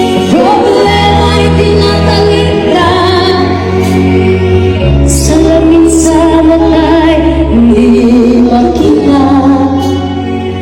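Live band playing at a sound check: a female singer holds wavering notes over sustained bass and keyboard or guitar chords, with cymbal crashes about halfway through.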